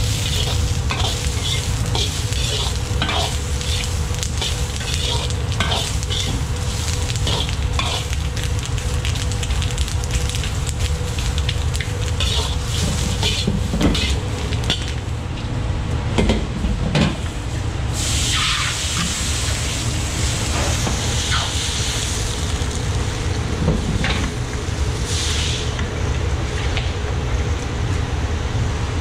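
Green peppers sizzling and frying in hot oil in a steel wok, stirred and tossed with a metal wok ladle that clinks and scrapes against the pan, over the steady low rumble of a commercial wok burner. About two-thirds through a louder hiss comes in for several seconds.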